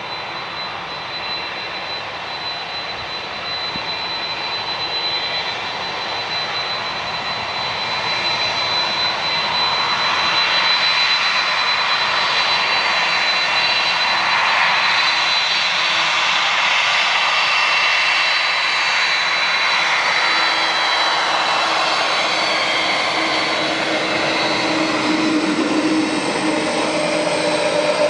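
KLM Boeing 747's four jet engines running as the jumbo jet draws near and passes close. A steady high whine rides over the engine roar, which grows louder over the first ten seconds or so and then holds.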